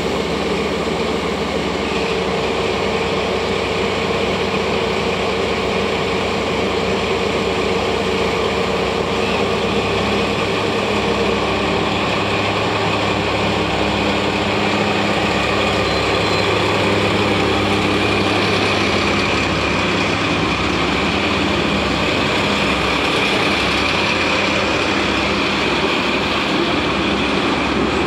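DD51 diesel-hydraulic locomotive's twin V12 diesel engines running at low revs as it moves slowly during shunting, a steady drone whose note changes about ten seconds in. Near the end, the loaded ballast hopper cars begin rolling past.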